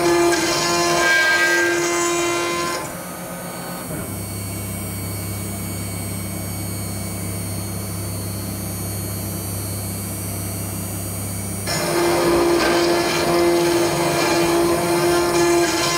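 Mechmate CNC router's spindle milling S355MC steel plate with an endmill: a steady whine over harsh cutting noise. About three seconds in the cutting noise drops away, leaving a quieter low hum for roughly nine seconds, then the loud cut resumes.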